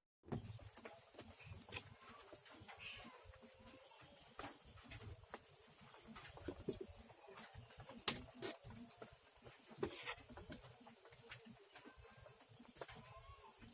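Faint background ambience: a steady, high-pitched pulsing tone, with scattered faint short calls and a few small clicks.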